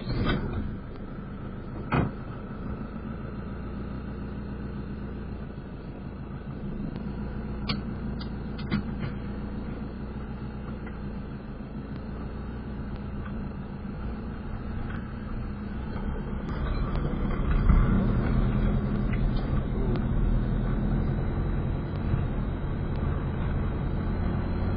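Motorhome engine and road noise while driving, a steady low rumble that grows louder about seventeen seconds in. A single knock about two seconds in.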